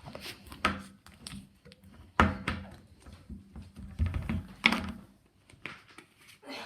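Slime being squished and pressed by hand, giving a string of sharp pops and squelches. The loudest come about two seconds in and again around four to five seconds in.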